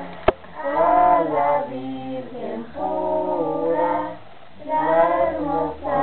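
A group of voices, children's and women's, singing in three long phrases with short breaths between. A single sharp click comes just after the start.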